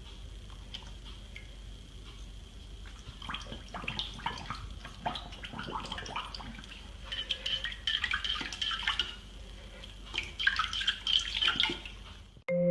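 Puppy lapping water from a ceramic bowl: quick wet clicks and splashes that come in bursts.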